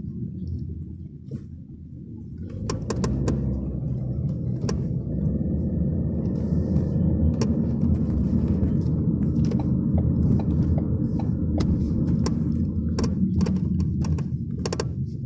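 Cabin road noise of a moving restyled Ford Focus 3, growing louder a couple of seconds in, with repeated short metallic creaks and clicks from the body, some in quick clusters. The creak is one the owner traces to a body pillar, coming with the body's diagonal twist in turns.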